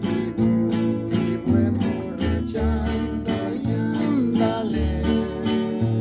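A song playing: guitars strummed in a steady rhythm over a moving bass line.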